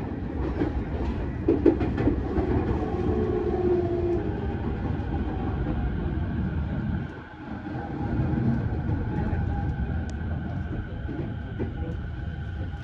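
Onboard running noise of a JR 209 series (2100 subseries) electric commuter train: a steady rumble of wheels on rail with a few knocks early on and a faint steady whine, as the train draws into a station.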